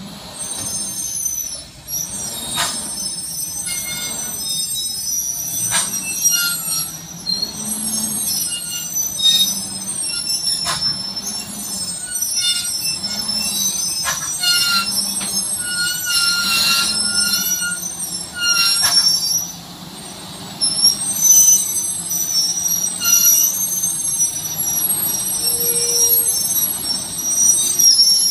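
Heavy truck's brakes squealing in repeated high-pitched squeals as it creeps along a slippery mud track, over the low hum of its engine.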